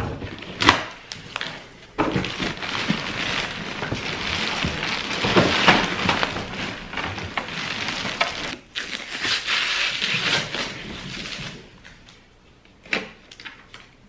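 Plastic packaging wrap crinkling and rustling as it is pulled out of a cardboard box, with the box being handled; it dies away near the end, leaving a couple of knocks.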